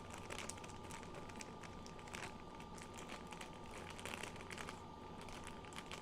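Faint, irregular crinkling and rustling of packaging being handled, made of many light crackles, over a faint steady whine.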